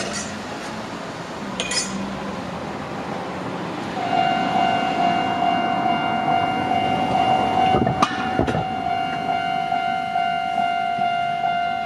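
Japanese railway level-crossing warning alarm starting about four seconds in: a loud, steadily repeating electronic ding over an even background rumble. Two sharp knocks sound about eight seconds in.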